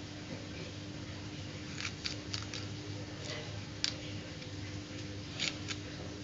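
Kitchen knife slicing fresh okra pods held in the hand, making about eight short crisp cutting clicks at irregular intervals, mostly in the middle of the stretch, over a steady low hum.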